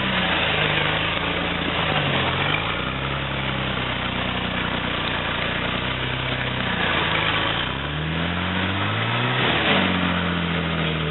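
Engine of a modified four-wheel-drive pickup working through deep mud, its revs rising and falling repeatedly. The longest climb comes about eight seconds in and peaks near the end before dropping back.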